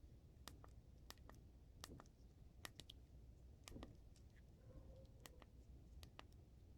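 Faint, irregular sharp clicks and ticks, roughly one or two a second, over a low steady room hum.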